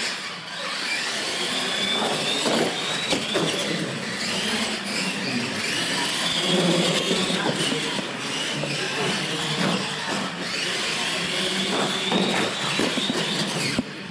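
Electric R/C monster trucks running flat out across a concrete floor: a high motor-and-gear whine that climbs and then holds, twice, over a steady rush of drivetrain and tyre noise.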